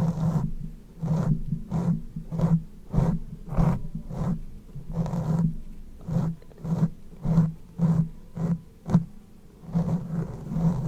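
Close-miked mouth sounds: a quick series of short wet, voiced sounds, roughly two a second.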